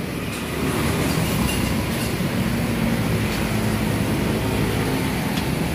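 Datsun Go's 1.2-litre three-cylinder engine idling with a steady low rumble.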